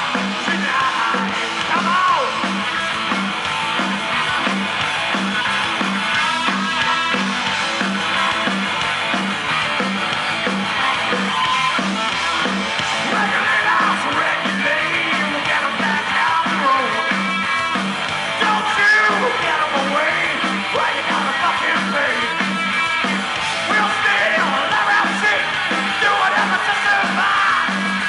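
A live rock band playing loud, with electric guitar, a steady beat and yelled, sung vocals.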